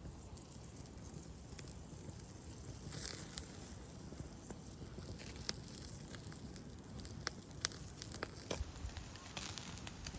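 Wood fire crackling in a fire bowl: scattered sharp pops and snaps over a low background rumble.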